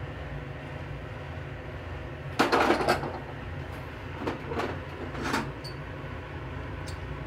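A metal saucepan set down on a gas stove's grate: a brief loud clatter about two and a half seconds in. A few lighter knocks follow as a ceramic bowl is handled, over a steady low hum.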